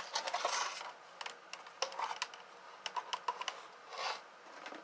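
Scattered light clicks and taps of small plastic and metal vacuum parts being handled during a teardown, coming irregularly and several in quick succession around the middle.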